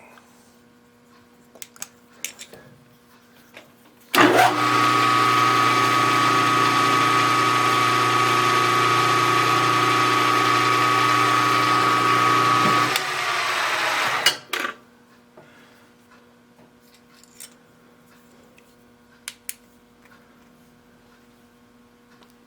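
Milling machine with a boring head in the spindle: a few light clicks, then the motor starts about four seconds in and runs steadily with a high whine for about nine seconds. It is then switched off and spins down over a second or so, ending with a click.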